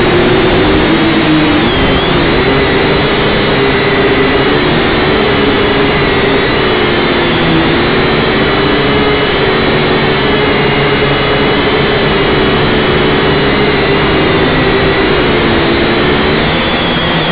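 Syma X5C quadcopter's small brushed motors and propellers whining loudly, heard close from the drone itself. The pitch wavers gently up and down as the throttle shifts while it hovers.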